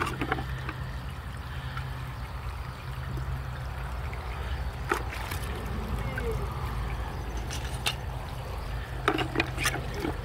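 Degreaser liquid trickling and sloshing in a plastic bucket as a hand lifts a wet petrified wood slice out of it, with a few light knocks about halfway through and near the end.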